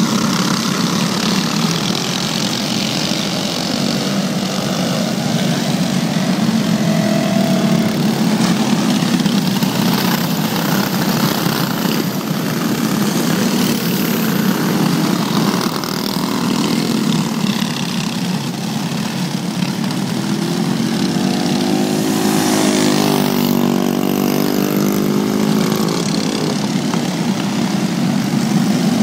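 A pack of racing karts with stock Briggs & Stratton Animal single-cylinder four-stroke engines running at race speed on a dirt oval: a dense, steady engine noise. About three-quarters of the way through, one kart's engine note stands out close by and bends in pitch as it goes past.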